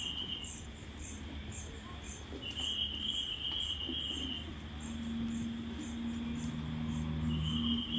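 Insects chirping: a regular high chirp about twice a second, with a longer, lower trill that starts and stops three times. Under it runs a low steady hum, joined about halfway through by a steady low drone.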